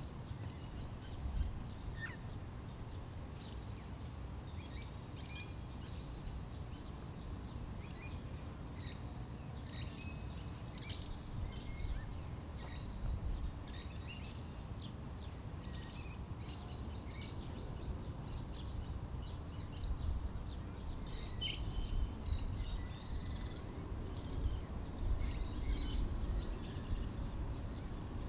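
Small birds chirping in many short, high calls, over a steady low rumble that grows a little louder near the end.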